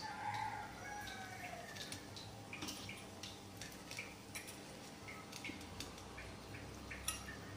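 A rooster crowing faintly in the background, one call falling in pitch over the first two seconds. Scattered light clicks and taps follow as fried chicken pieces are set down on the rice in a steel pot.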